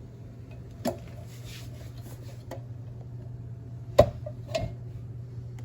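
A few sharp clicks and knocks of small hard objects being handled, the loudest about four seconds in, with light rattling between them, over a steady low hum.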